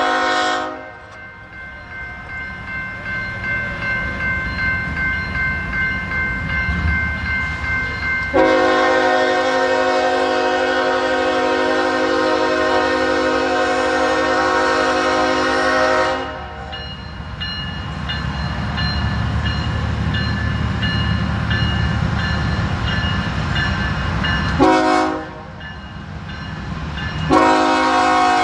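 Diesel locomotive air horn sounding the grade-crossing signal, a chord of several notes: the end of one long blast, a second long blast of about eight seconds, a brief short blast, then another long blast starting near the end. Between blasts the locomotive's low rumble grows as the train approaches.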